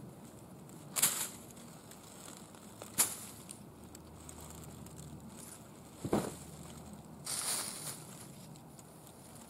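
Stiff waxed-linen groundsheet being unfolded by hand, rustling, with three sharp crackles a couple of seconds apart and a longer rustle near the end.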